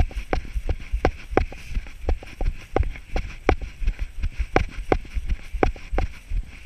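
A runner's footfalls on grass, a steady thudding stride at about three steps a second.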